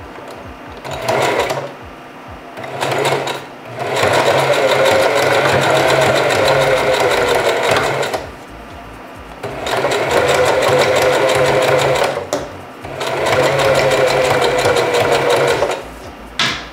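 Singer 4423 Heavy Duty sewing machine stitching a hair weft onto a wig cap, running in bursts: two short spurts near the start, then three longer runs of about three to four seconds each, stopping briefly between them.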